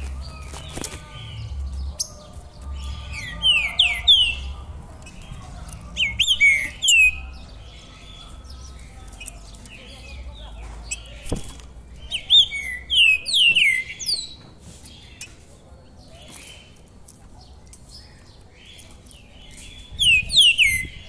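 A caged songbird singing in phrases of quick, sharply falling whistled notes, coming in several loud bursts with pauses between them.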